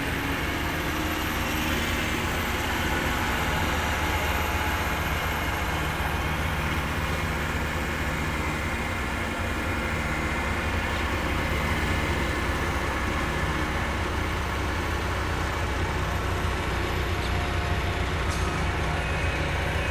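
Large diesel engine running steadily with a low, even drone.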